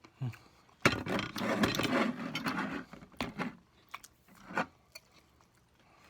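Handling noise at a dinner table as hot sauce is put on food: a sharp knock, then about two seconds of scraping and rattling, then a few short clicks.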